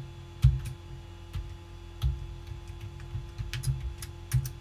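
Computer keyboard keys clicking irregularly as a password is typed, about a dozen keystrokes, some landing with a dull thump. A steady low hum runs underneath.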